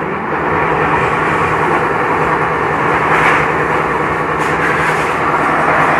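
Steady, loud machine noise with an even rumble.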